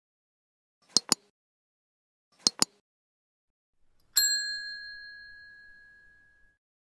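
Sound effects of an animated subscribe intro: two quick double clicks, then a single bell ding that rings out and fades over about two seconds.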